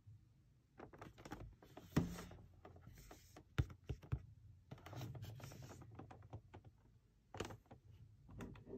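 Hands handling a cardboard headset box, turning it over with fingers tapping and rubbing on the printed card. There are scattered clicks and knocks, the sharpest about two seconds in, and stretches of scratchy rubbing.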